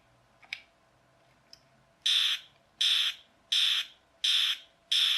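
Battery-powered plastic toy gun's electronic firing sound effect, played through a small replacement speaker salvaged from headphones: a couple of faint clicks, then from about two seconds in a string of short, shrill, identical bursts repeating about every 0.7 s. It shows the sound circuit now working after the speaker was replaced.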